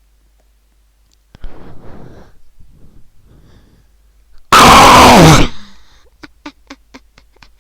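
A person's wheezing, breathy sounds, then a very loud, distorted cry about a second long that falls in pitch. A quick run of sharp clicks follows.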